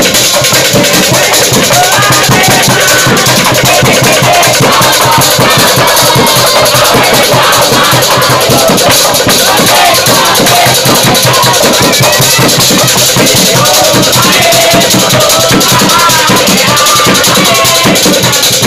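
Obrog sahur wake-up percussion: drums and shaken rattles beating a fast, steady rhythm, very loud, with a group of voices chanting and shouting along in football-supporter style.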